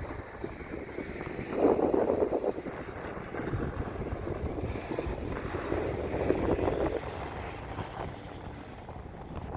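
Wind buffeting the microphone, a rough rushing noise that swells in two stronger gusts, one about a second and a half in and one past the middle.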